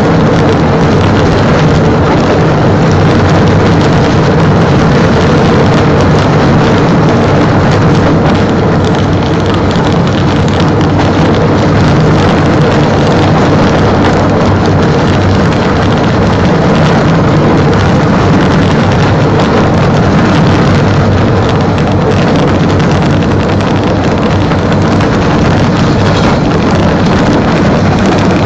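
Engine of a rail vehicle running steadily at an even pace as it travels along the track, with a constant drone and the rush of its movement over the rails.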